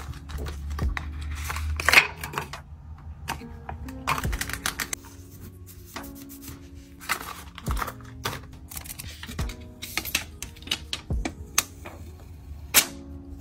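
Paper sticker sheet and journal paper being handled: rustling and crinkling, with many sharp clicks and taps scattered throughout, a denser rustle about two seconds in, over background music.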